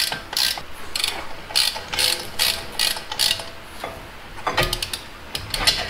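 Socket ratchet clicking in a steady rhythm of about two to three strokes a second as a freshly loosened brake caliper bolt is backed out, then a quicker run of sharp clicks near the end.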